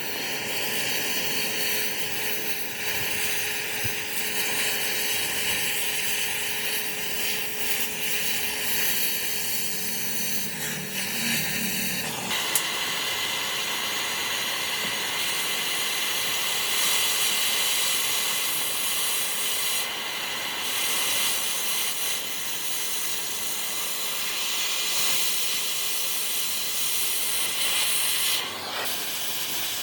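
A steady, loud hiss with a high, even rush of noise, which shifts brighter and stronger about twelve seconds in.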